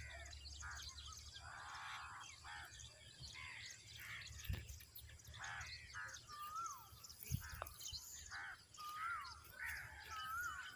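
Several birds calling and chirping outdoors, with many short calls and repeated dipping whistled notes. Two brief dull knocks come about four and a half and seven seconds in.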